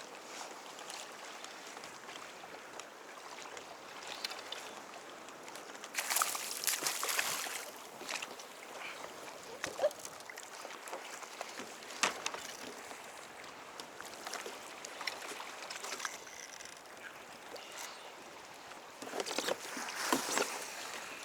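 Water sloshing and splashing around a fishing kayak, with scattered clicks and knocks. There is a louder stretch of splashing about six seconds in and another near the end.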